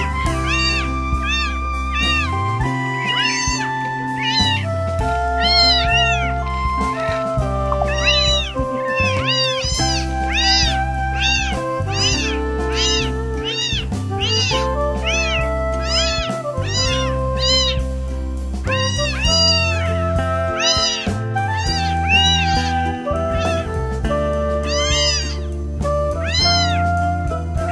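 Young kittens meowing loudly and over and over, short high cries that rise and fall, about one or two a second. Background music with long held notes plays underneath.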